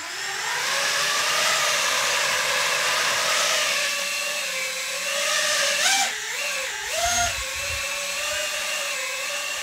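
FPV quadcopter's brushless motors and propellers spinning up to a steady high-pitched whine on a 3D-printed PLA-framed X-wing drone. The pitch wavers up and down about six and seven seconds in as the throttle changes and the drone lifts off into a hover, then holds steady.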